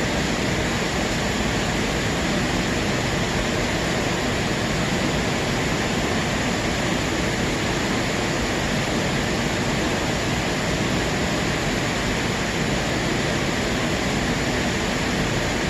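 Steady rushing noise of aquarium water and filter flow, even and unbroken.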